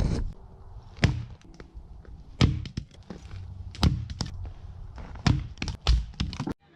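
Firewood being chopped: a series of about eight heavy wooden knocks and thunks at uneven intervals, cut off abruptly near the end.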